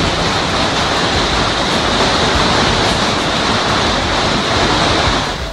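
Hail and heavy rain pelting down in a dense, steady hiss of countless small impacts during a severe hailstorm. It cuts off abruptly at the end.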